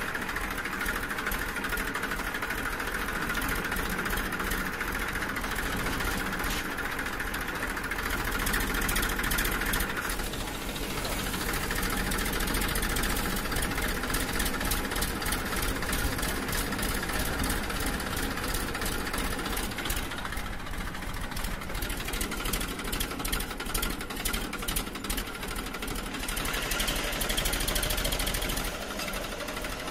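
Small electric gear motors of a homemade cardboard RC tractor running with a steady whirring buzz, the pitch shifting about a third of the way in and rising higher near the end.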